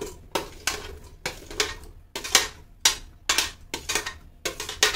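Steel spoon scraping and clinking against a stainless-steel compartment tray, scooping up diced potatoes, in a quick run of about three strokes a second.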